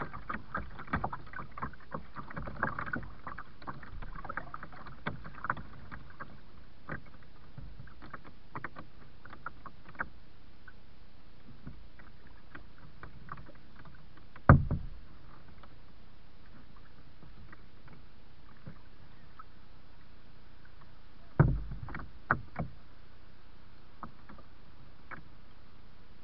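Kayak being paddled along a river: a steady wash of water with many small clicks and splashes. There are two heavy knocks, about halfway through and again near the end, the second followed by two lighter ones.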